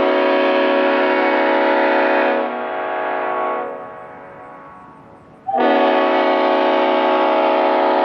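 Leslie RS5A five-chime train air horn (a reproduction S5A fitted with RS spike-back heads) sounding a very deep, really loud chord. The blast cuts off about two and a half seconds in, with a few of the bells dying away about a second later. A second blast starts suddenly about five and a half seconds in.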